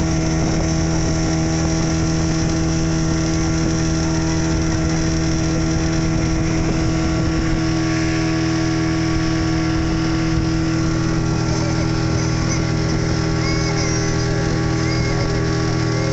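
Diesel boat engine running steadily under way, a constant drone that holds one pitch throughout.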